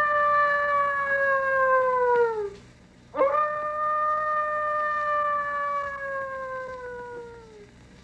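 Coyote howling: two long, steady howls, each dropping in pitch as it trails off. The first ends about two and a half seconds in, and the second begins about half a second later.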